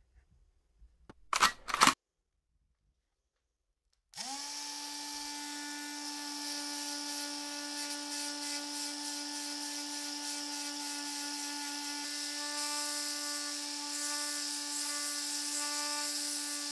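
Two short sharp knocks about a second and a half in, then a Black & Decker detail sander starts about four seconds in and runs at a steady pitch, sanding a wooden handle blank.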